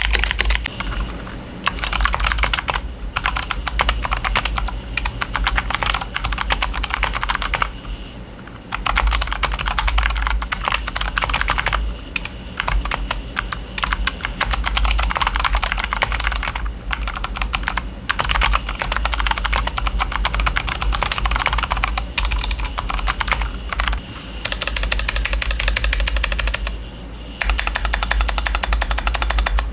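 Fast typing on a mechanical keyboard fitted with clicky switches: a dense, rapid stream of sharp key clicks, broken by short pauses around 8 s, 12 s and 27 s.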